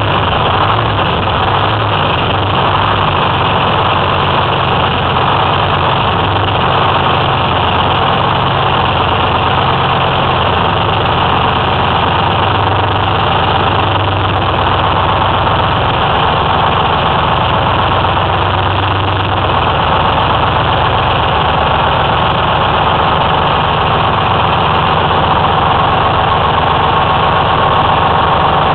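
Detroit Diesel 6V53 two-stroke V6 diesel running steadily at idle, with no rise or fall in pitch, on its first run with a freshly rebuilt blower.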